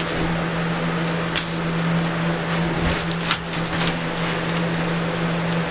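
Steady machine hum, like a fan or motor running, with a few light rustles and knocks of handling.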